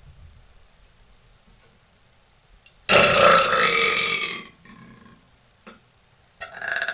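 A woman's single loud, deliberate burp about three seconds in, lasting about a second and a half.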